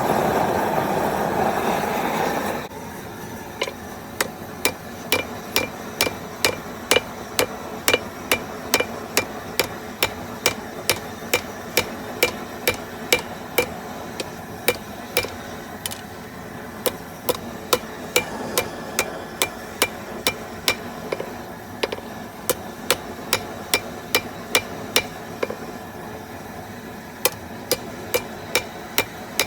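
Propane gas forge burner running with a steady roar that drops away abruptly about three seconds in; then a hammer striking a hot steel rod being forged, steady ringing blows about two a second, with a short pause near the end.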